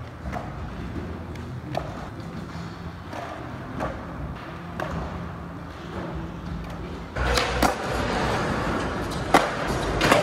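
Skateboard on a concrete floor: wheels rolling, with sharp wooden clacks as the board is popped, flipped and landed during flat-ground tricks. The sound turns suddenly louder about seven seconds in, with a few more sharp clacks after that.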